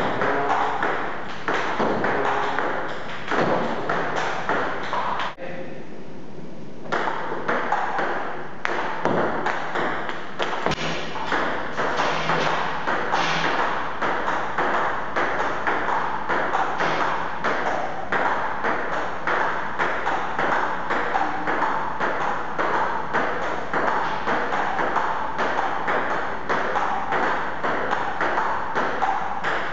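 Table tennis balls struck back and forth between paddles and bouncing on the table in a quick, even run of sharp clicks, pausing briefly about five seconds in.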